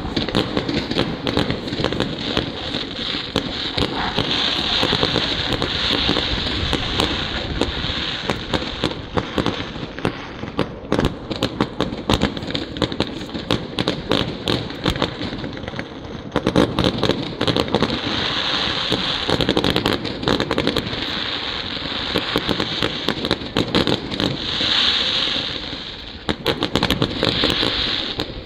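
Fireworks display going off: a fast, dense string of bangs and crackles from bursting shells, with stretches of thick crackling.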